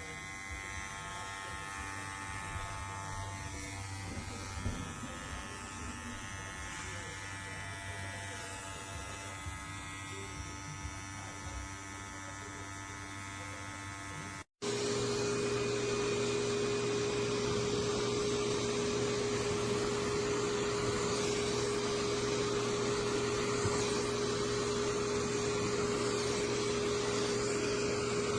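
Electric dog clipper with built-in vacuum running with a steady buzzing hum. About halfway through there is an abrupt cut to a louder, steady whirring hum with a strong single tone, the clipper running with its suction.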